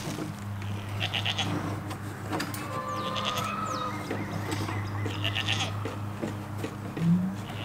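Goats bleating several times.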